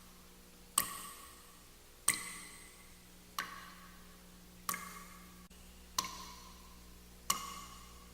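Water drops falling one at a time into water in an echoing space, six in all about every 1.3 seconds, each a sharp plink with a short ringing note and an echoing tail.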